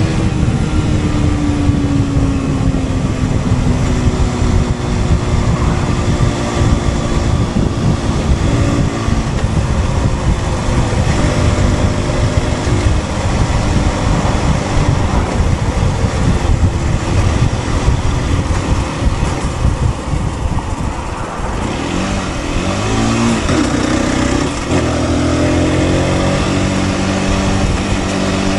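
Aprilia RS 125 motorcycle riding with wind rushing over the microphone. The single-cylinder engine's pitch falls early on, rises and falls a couple of times after about twenty seconds, then holds steady near the end.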